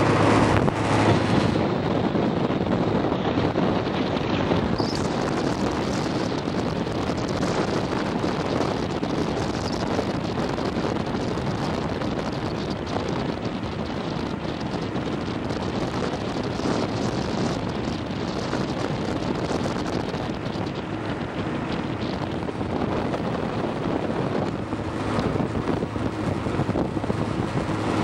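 Steady rush of wind over the microphone with the road noise of a moving car.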